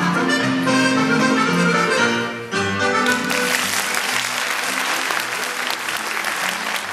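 Irish dance tune playing, which stops about two and a half seconds in, then an audience applauding.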